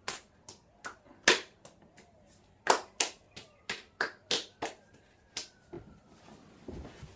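Two people's hands clapping and slapping together in a quick, multi-move handshake routine: about fifteen sharp smacks in an irregular rhythm, the loudest about a second in and again near three seconds. A softer, duller sound comes near the end.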